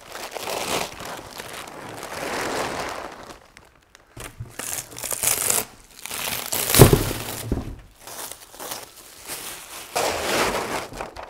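Plastic vacuum-bag film crinkling and rustling as it is pulled off, then infusion flow mesh and peel ply being peeled and ripped away from the cured fibreglass laminate in its mold, in an uneven run of rustles and tears. A single sharper knock stands out about seven seconds in.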